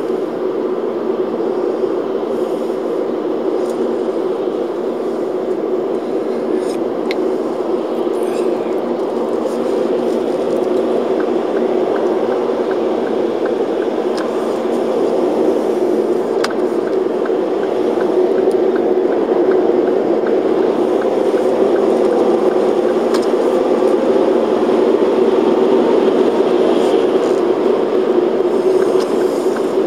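Steady drone of tyre and engine noise inside a car cruising on a motorway, growing slowly louder over the stretch.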